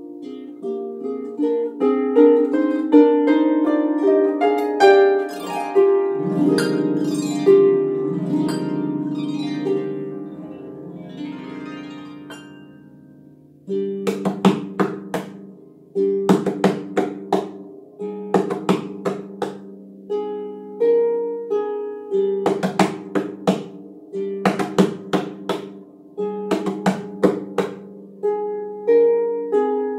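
Lever harp played solo: flowing plucked notes that ring over one another and die away over the first dozen seconds, then a rhythmic, flamenco-style pattern of sharp, strummed chords, a group of strikes about every second.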